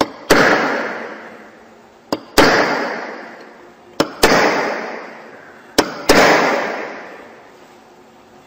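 Hammer striking a steel punch held on a metal plate, punch-marking dots along a scribed line. Four blows about two seconds apart, each with a light tap just before it and a ringing that dies away over about a second and a half.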